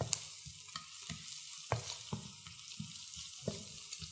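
Chopped onion sizzling in oil in a frying pan while a slotted spatula stirs it, scraping and tapping against the pan about every half second.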